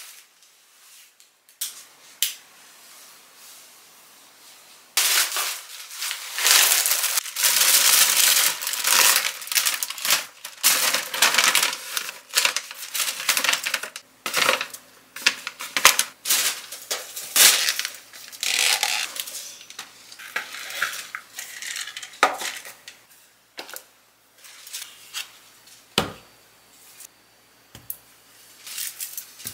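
A plastic shopping bag rustling and snack packets crinkling as they are handled, with clicks and light knocks as packets, noodle cups and drink cartons are set down on a table. There is a sharper knock near the end.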